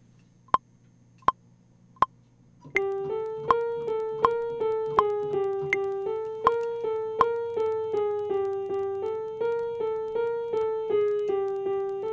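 Three metronome ticks about three-quarters of a second apart, a record count-in, then a sampled grand piano from Reason's NN-XT sampler playing a quick repeated figure that alternates between two pitches. The ticks keep going on each beat under the piano.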